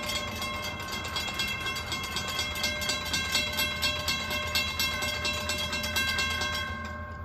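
Railroad grade-crossing warning bell ringing in rapid, regular strokes while the crossing gates lower. The ringing stops abruptly near the end, as the gate arms come down to horizontal.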